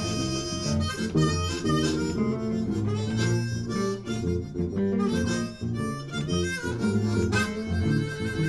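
Blues harmonica playing a lead line of held and bending notes over guitar and bass guitar backing, played live by a small band.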